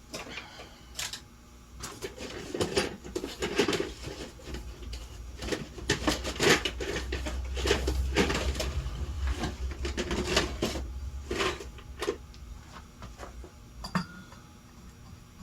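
Irregular clattering and clinking of small hard objects being handled and set down, densest in the middle and thinning out toward the end, with a low hum underneath in the middle.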